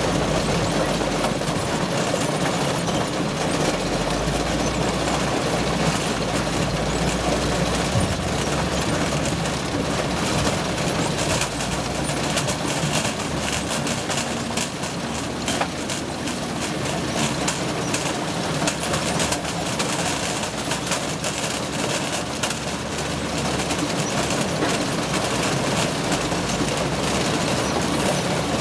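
Sugar beet rescreener running steadily: engine and vibrating shaker drone, with the continuous clatter of dirt and beets tumbling off the conveyor onto the pile.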